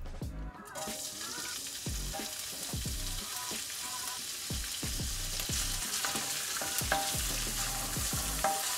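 Chopped smoked calabresa sausage sizzling in hot olive oil in a stainless steel skillet as it is tipped in from a bowl. The sizzle starts within the first second and keeps up steadily.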